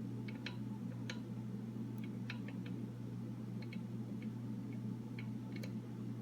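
Small, irregular metallic clicks and ticks of a lock pick and tension wrench working the pins of a Master Lock No. 3 padlock, about a dozen light clicks spread unevenly over a steady low hum.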